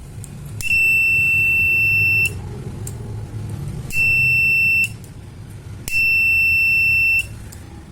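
A 5 V buzzer sounds three steady, high-pitched beeps of uneven length, each about one to two seconds long, in the manner of a fire alarm going off.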